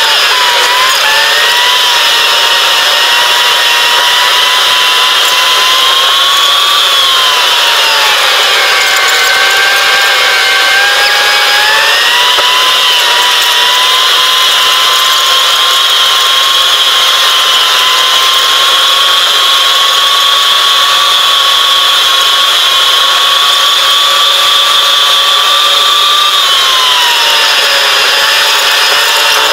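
Car engine running at road speed, heard from inside the cabin as a steady, loud, high whine whose pitch sinks and climbs slowly a few times.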